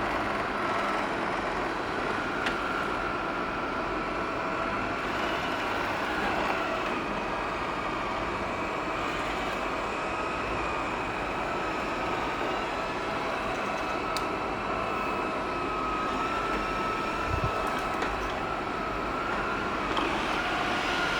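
Xiaomi E10 robot vacuum running: a steady suction-fan noise with a faint high whine, and an occasional light click.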